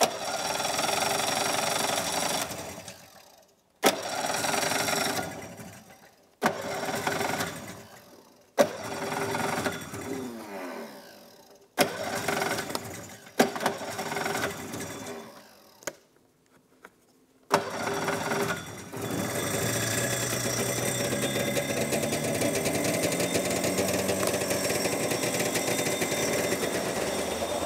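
Polaris snowmobile's two-stroke twin-cylinder engine being cranked over and over on its first start after a carburetor cleaning: about six times it fires briefly and dies away, then near the 18-second mark it catches and keeps running, rising a little in pitch as it settles.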